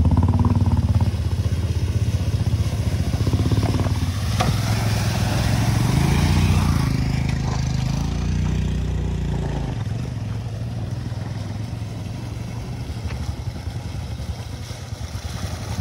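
A vehicle engine running, its pitch rising and falling about midway as it speeds up and eases off.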